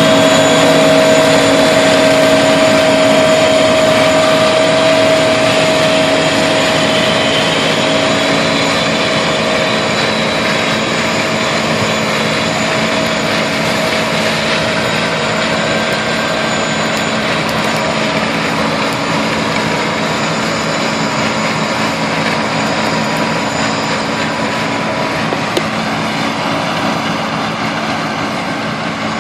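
Combine harvester running steadily in a bean field, a steady engine sound with several held machine whines over it, slowly growing fainter.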